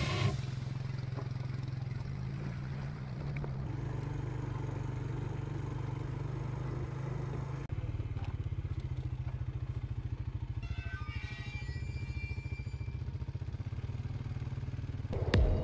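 Quad ATV engine running under load with riders aboard, a steady low drone; about halfway through it changes to a slower, evenly pulsing beat of the engine at low revs.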